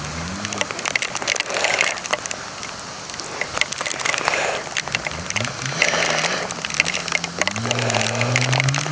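Vintage snowmobile engine revving up and down, then climbing steadily in pitch near the end as it pulls away, over a steady crackling hiss.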